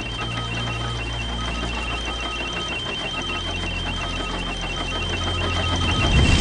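Background music score: a low sustained drone under a steady high tone and a short high-pitched beeping pulse repeating about twice a second, swelling near the end.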